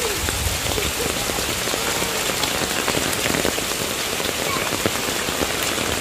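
Heavy monsoon rain falling steadily: the even, dense roar of downpour on the ground.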